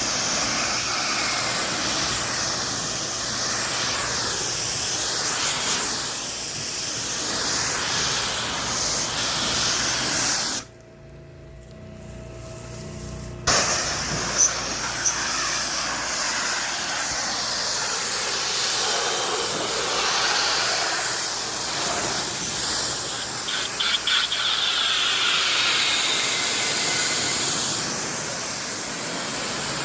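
High-pressure water spray from a pressure washer wand hissing steadily as it rinses screen enclosure panels. The spray stops for about three seconds a little past a third of the way through, then starts again.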